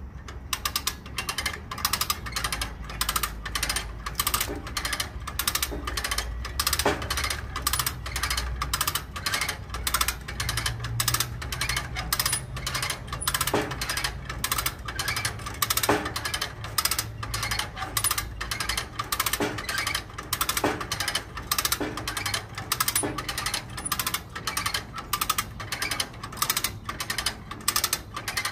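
Steel Core 4-ton come-along cable puller being ratcheted by hand, its pawl clicking in an even rhythm of about two to three clicks a second as it winches a zero-turn mower under load.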